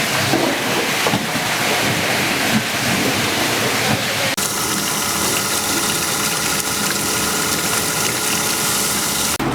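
Steady machinery noise. About four seconds in it cuts abruptly to a steadier machine hum with several constant tones.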